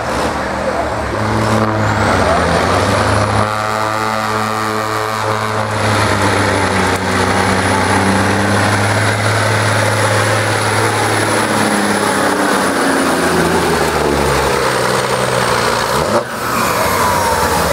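Diesel semi truck engine running hard at high, steady revs, with a thin high whistle over the engine note. The engine pitch falls near the end.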